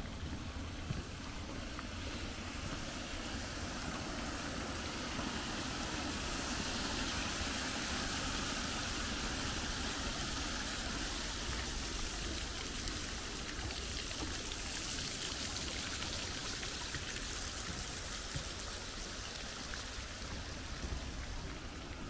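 Sea waves washing along the shore, a steady rush of water that swells louder twice, once about a quarter of the way in and again past the middle.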